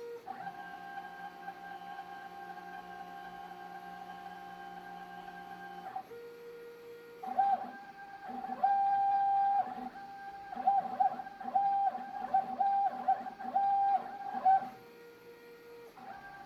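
Stepper motors of a CNC writing machine whining as it draws. First a long steady run, then a short lower-pitched move, then a string of quick start-stop bursts as it traces short strokes.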